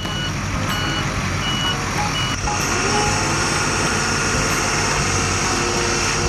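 Construction-vehicle sound effect: a heavy engine running steadily, with four short, evenly spaced reversing beeps in the first two and a half seconds.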